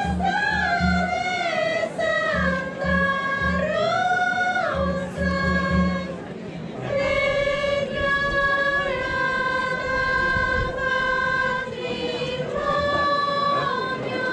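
High women's voices singing a melody together in unison, with long held notes and sliding turns, the typical chant of the pallas in an Andean Inca dance. Short runs of low, evenly spaced beats sound under the singing during the first half.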